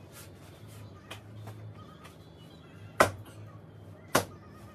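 Punches landing on padded focus mitts: a faint hit about a second in, then two sharp, loud smacks about a second apart near the end.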